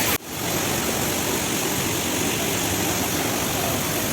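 Steady rushing of a waterfall. There is a brief dropout a fraction of a second in, where the recording cuts.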